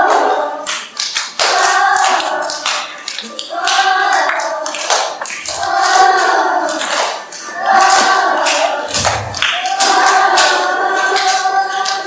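A group of young children singing a vacation Bible school song together in phrases of a second or two, with sharp hand claps throughout.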